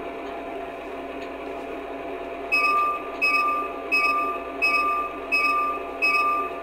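Phoenix P5 sound board in an LGB G-scale Amtrak Genesis model locomotive, playing a diesel engine idling through its small speaker. About two and a half seconds in, the locomotive bell starts ringing steadily, about three strikes every two seconds.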